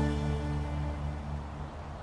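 Background music of held, sustained tones fading out.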